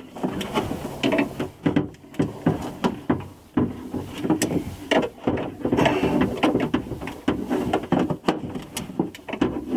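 Irregular clicks, taps and rattles of a door latch assembly and its linkage rod being worked into position inside a 2005 Pontiac Grand Prix door, hard parts knocking against the door shell.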